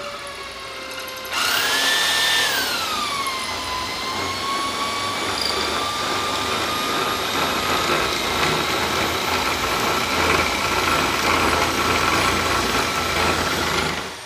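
Power drill spinning a 10 mm (3/8-inch) wooden rod through a dowel jig, where a clamped planer blade shaves it round. The motor whine jumps to full speed about a second in, sinks in pitch as the rod is fed into the blade, then holds steady, and stops just before the end.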